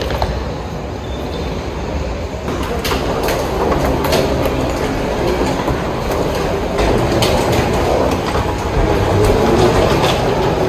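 A hard-shell suitcase's wheels rumbling and rattling as it is pulled over a stone-tiled floor and along a moving walkway, with irregular sharp clicks.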